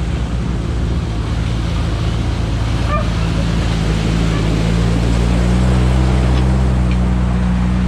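Engines of WWII half-tracks running steadily as the vehicles wade through a river ford, with water rushing and splashing around their wheels. The engine hum grows gradually louder to a peak about six seconds in, as a half-track comes past.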